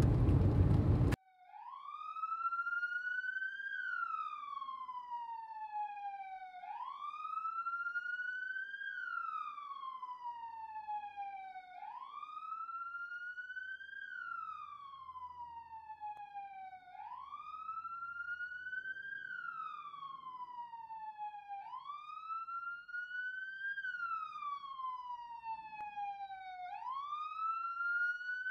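Loud car road noise that cuts off suddenly about a second in. A police siren then wails, rising quickly and falling slowly, about once every five seconds.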